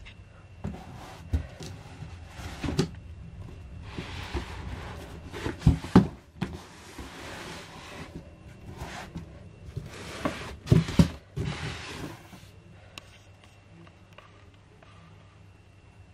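Large cardboard box being handled by hand: stretches of scraping and rustling with a few sharp thumps, the loudest as two pairs of knocks, one midway and one about two-thirds through.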